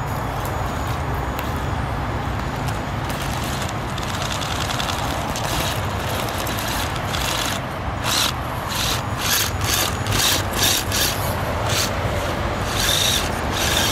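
Traxxas TRX-4 Sport RC crawler's paddle tyres scrabbling and scraping on a wooden tree stump as it climbs, with short irregular bursts of scratching from about eight seconds in over a steady background rumble.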